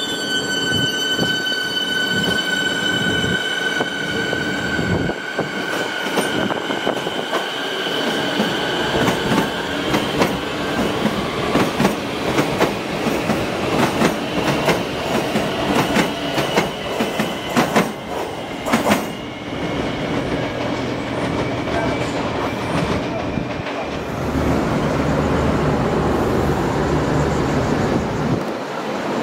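Melbourne Metro X'Trapolis electric suburban trains moving through a station. A high steady whine fades over the first few seconds as one train pulls away. Then wheels clack over rail joints in a long run of sharp clicks, with some wheel squeal, as a train passes close by. A low steady rumble follows near the end.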